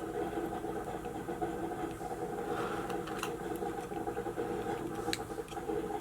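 Steady mechanical hum, like a fan running, with a few faint small clicks, about a third and halfway through and again near the end, from small parts being handled during reassembly of a small electronic device.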